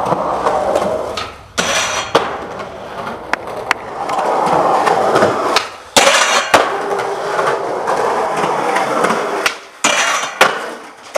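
Skateboard wheels rolling on concrete, broken by sharp clacks of the board popping and landing. A board also slides along a metal handrail, over several cut-together attempts.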